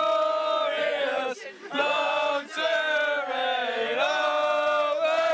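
A group of people singing together in unison, with long held notes and short breaks for breath about a second and a half in and again near four seconds.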